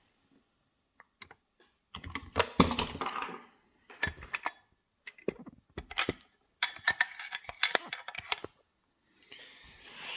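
Metal tools and a KIK lock cylinder clicking and clattering in irregular bursts as the lock is handled to be taken apart. The densest clatter comes about two-thirds of the way through.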